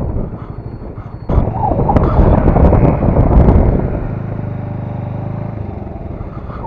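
Bajaj Avenger Cruise 220 single-cylinder motorcycle engine running at road speed, with wind rushing over the microphone; the wind noise rises sharply a little over a second in, and about four seconds in a steady engine hum comes through for a second or two.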